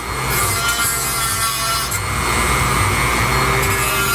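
Handheld rotary tool running and grinding at the edge of a fiberglass landing-gear fairing, a steady whine with scraping, to trim the opening to fit over the gear leg.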